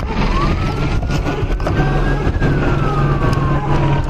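Police siren wailing in one slow cycle, rising in pitch over the first two seconds and then falling slowly. A steady low engine hum lies beneath it.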